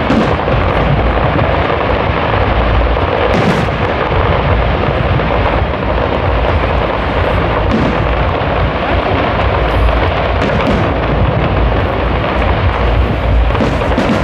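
Fireworks going off in a dense, continuous rumble of explosions, with sharper individual bangs standing out about six times.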